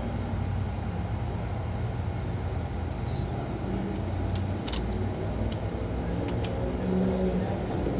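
A few short metallic clicks and clinks of an adjustable wrench on the catch can's fittings, the loudest just under five seconds in, over a steady low background hum.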